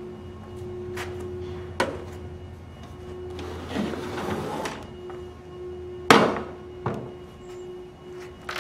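A CarveWright CNC carving machine is tipped over onto its back on a wooden workbench. Its plastic and metal housing knocks a few times and scrapes across the bench, then lands with one heavy thump about six seconds in, followed by a smaller knock.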